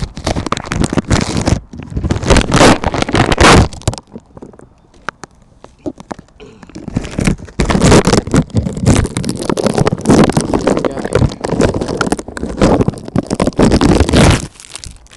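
Handling noise on the iPhone's microphone: loud, irregular rubbing and scraping in uneven surges, with a quieter lull a few seconds in.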